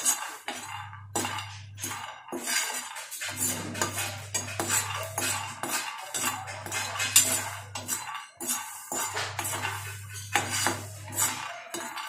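Steel spoon scraping and clinking against a non-stick frying pan as raw peanuts are stirred while dry-roasting, the peanuts rattling across the pan with each stroke.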